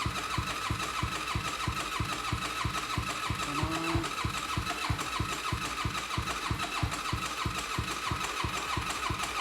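A Honda 400EX's single-cylinder four-stroke engine running, with an even low thump of about five beats a second.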